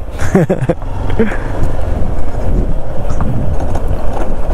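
Motorcycle riding over a rough, rocky road, a dense rumbling noise with wind buffeting the microphone. Two short bits of voice come in the first second or so.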